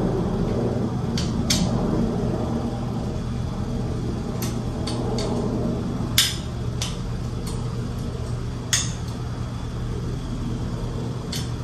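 Scattered light clicks and clinks of lights being unhooked and handled, over a steady low hum; the two sharpest clicks come about six and nine seconds in.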